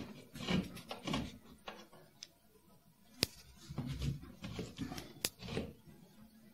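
A long spirit level scraping and shifting on the metal tables of a jointer, in short irregular rubbing strokes, with two sharp clicks about three and five seconds in. The machine itself is not running.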